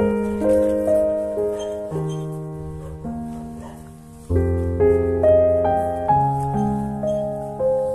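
Background piano music: gentle notes and chords over low bass notes. It dies away to its softest about four seconds in, then comes back louder on a new low chord.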